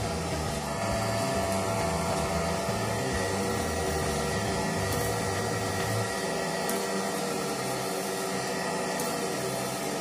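Homemade vacuum cleaner's electric motor and fan running steadily with a whine, drawing air and paper bits up the suction hose. The low hum drops away about six seconds in.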